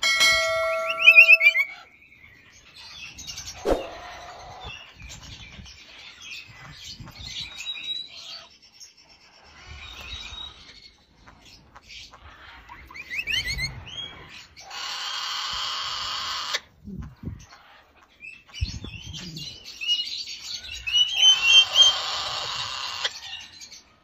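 Red-fan parrots calling: scattered chirps and short rising whistled notes, with two longer rasping screeches, one about 15 s in lasting nearly two seconds and another about 21 s in.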